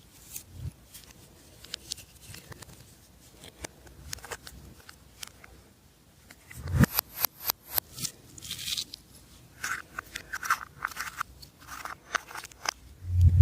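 Slime being worked and mixed by hand, giving sticky clicks, pops and crackles. They are sparse at first and become quicker and louder from about halfway through.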